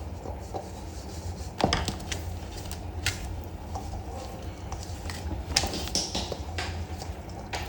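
Kitchen food-preparation sounds: irregular scraping and light knocks, as of utensils on a wooden board, over a steady low hum.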